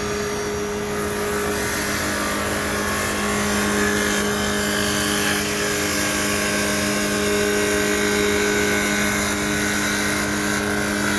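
Automatic CNC wood lathe running: a steady motor hum with several constant tones over an even high hiss.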